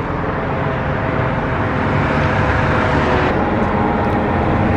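Steady rumble of motor traffic on a busy street, slowly growing louder.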